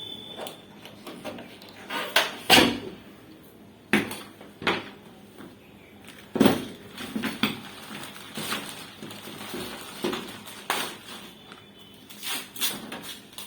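Irregular knocks and clatter of hard objects being handled and set down, a dozen or so sharp strikes spread unevenly, the loudest pair about two and a half seconds in and another about six and a half seconds in.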